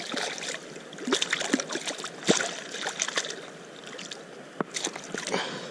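A steelhead trout splashing and thrashing at the surface of shallow creek water beside the angler's hand, in short irregular splashes over the running creek.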